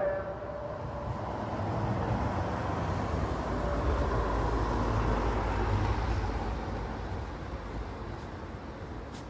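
A vehicle passing on the street, its rumble swelling to a peak around the middle and fading away. The end of a sung call-to-prayer phrase echoes out at the very start.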